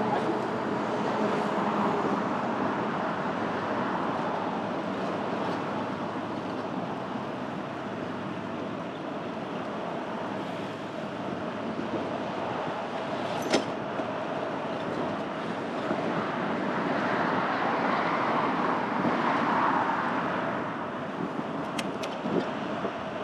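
City road traffic noise heard from a moving bicycle, a steady rush that swells louder twice as vehicles pass. A sharp click sounds about halfway through and two more near the end.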